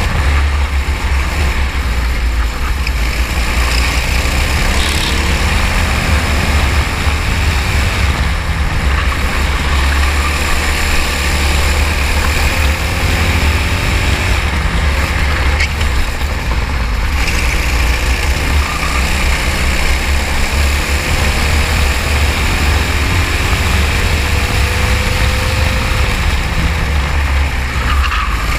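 Racing kart engine running at speed, its pitch rising and falling repeatedly as it accelerates and slows, under a heavy steady low rumble.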